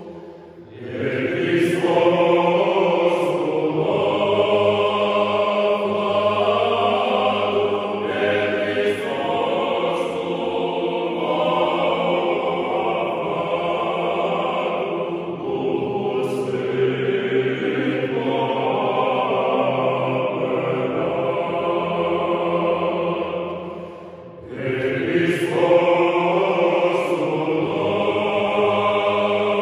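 Male choir singing a Romanian Christmas carol (colind) a cappella in several-part harmony, with two brief breaks between phrases, just after the start and about 24 seconds in.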